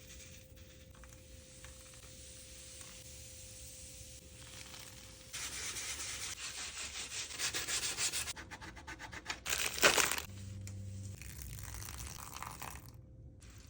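Abrasive rubbing on a tray's surface. It is faint at first and turns into rapid, louder strokes from about five seconds in, peaks just before ten seconds, then eases off.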